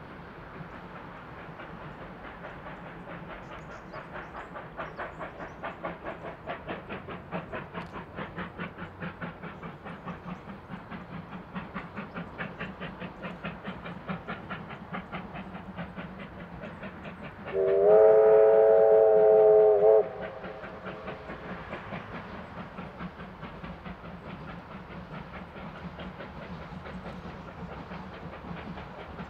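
Three Victorian Railways steam locomotives heading a train together, approaching with rapid rhythmic exhaust beats. Over halfway through, one steam whistle blast of about two seconds sounds, a chord of several tones and the loudest thing heard.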